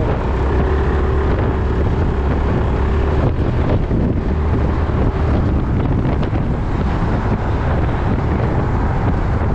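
Strong wind buffeting the microphone, with the Yamaha Majesty 400 scooter's single-cylinder engine running underneath.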